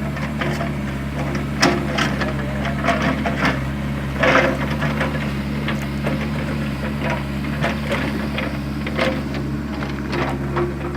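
Excavator's diesel engine running steadily while it digs a trench, with irregular knocks and clanks from the digging, the loudest about four seconds in.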